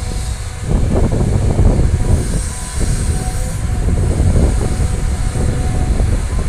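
Caterpillar hydraulic excavator's diesel engine running under load as its bucket tips a load of dirt into a steel dump-truck bed, a rattling rumble of soil falling from about a second in.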